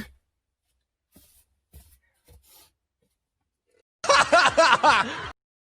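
A burst of human laughter about four seconds in, in quick repeated pulses for just over a second, cut off abruptly. A few faint ticks come before it.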